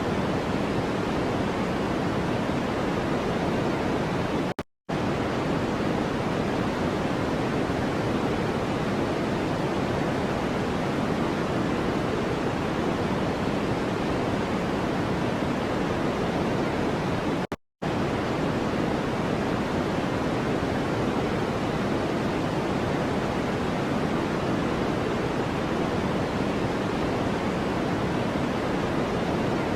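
Steady, even hiss-like noise played as a white-noise track, weighted toward the low and middle range rather than flat, like pink noise. It cuts out to silence for a split second about five seconds in and again a little past halfway.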